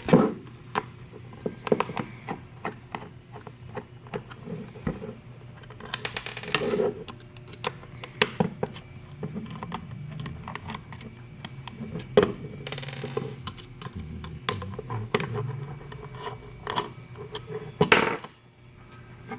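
Hands taking apart a security camera: scattered clicks, taps and knocks of small metal and plastic parts and screws, with a couple of longer scraping rubs. A faint low steady hum runs underneath.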